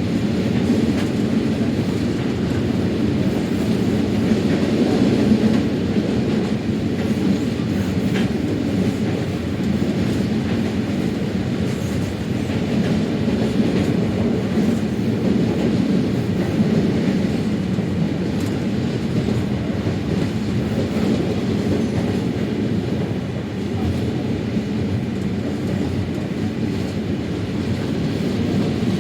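Steady rumble of a moving train heard from inside a passenger car, with faint occasional clicks from the wheels over the rails.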